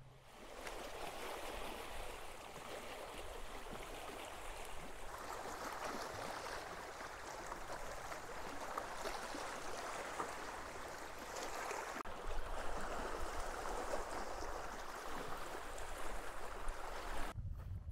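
Small waves washing and splashing over shoreline rocks: a steady rush of water, a little louder from about five seconds in.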